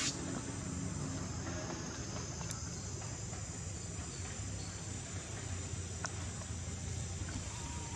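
Steady high-pitched chorus of insects over a low steady rumble, with a few faint clicks.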